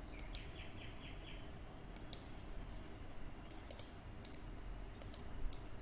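Computer mouse buttons clicking about a dozen times, singly and in quick pairs and clusters, over a faint low hum.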